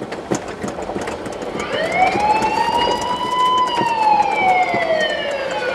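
Police car siren starting up about two seconds in, giving one slow wail: a rise in pitch, a long hold, then a slow fall. Steady road noise and scattered light clicks run underneath.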